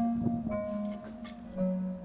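Background instrumental music: sustained melodic notes, each held for about half a second to a second before the next begins.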